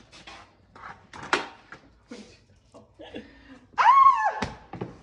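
Scattered light knocks and scuffles, then about four seconds in a loud, high-pitched voice that holds its pitch and then slides down.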